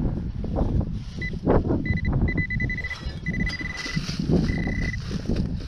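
Handheld metal-detector pinpointer beeping at one high pitch: short beeps that quicken and run into longer steady tones about halfway through as the probe closes on a metal target in the soil. Underneath, low rustling of soil being worked by hand and wind.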